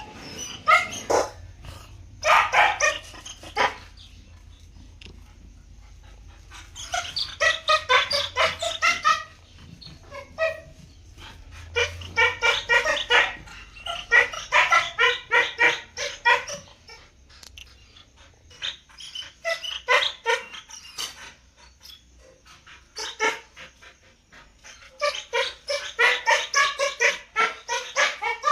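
A dog barking in quick bouts of rapid, repeated barks lasting one to three seconds, with short pauses between bouts.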